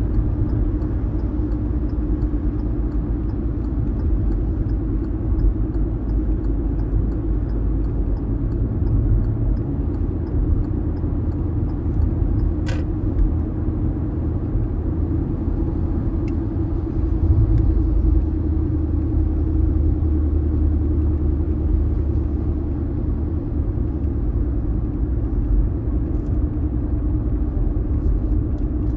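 Car driving along a highway: a steady low rumble of road and engine noise, with one brief click about 13 seconds in.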